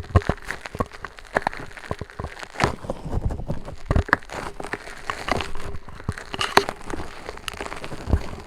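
Squishy Nee Doh fidget toy being squeezed and handled right against the microphone: a dense, irregular run of crackling clicks and knocks, with finger rings tapping the mic.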